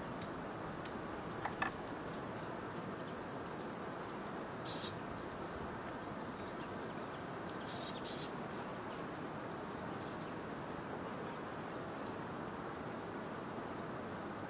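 Outdoor ambience: a steady low rush with scattered high chirps and short trills of small wildlife, the clearest about five and eight seconds in.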